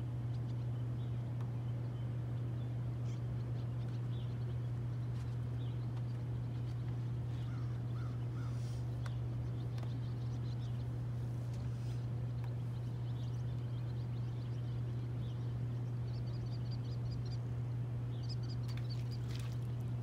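A steady low hum, with faint bird calls scattered over it, including quick runs of repeated high chirps near the end.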